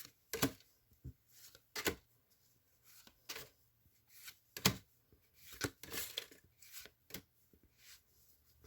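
Pokémon trading cards being flipped through by hand: a string of short, separate flicks and rustles of card stock at uneven gaps.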